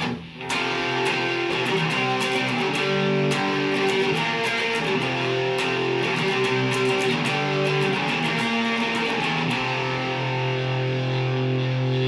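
Fender Mexican Stratocaster electric guitar played through an amp with distortion, on its middle Lace Sensor pickup alone: held chords and notes, ending on a long low note in the last couple of seconds.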